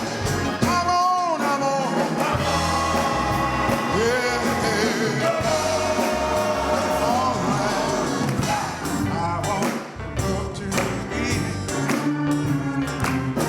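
Gospel singing with instrumental accompaniment and a beat that grows more prominent in the second half.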